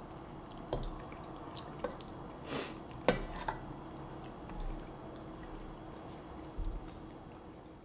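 A few scattered light clicks and clinks of forks against ceramic bowls and plates while eating, the sharpest about three seconds in, over a faint steady hum of room tone.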